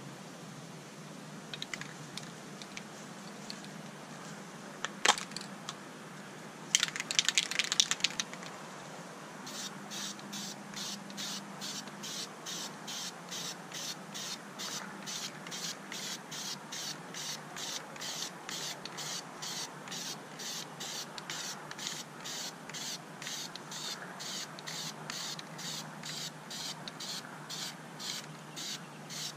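Aerosol can of Krylon Camouflage spray paint: a dense rattling burst about seven seconds in, like the mixing ball shaken in the can, then a hissing spray as paint goes on. A steady high-pitched pulsing, a little over two beats a second, runs through the last two-thirds.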